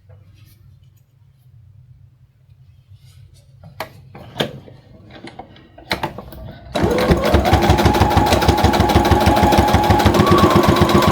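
Brother Project Runway CE1100 sewing machine stitching a seam. After a few quiet handling clicks it starts about seven seconds in and runs in a fast, even needle rhythm, its motor whine stepping up in pitch twice as it speeds up.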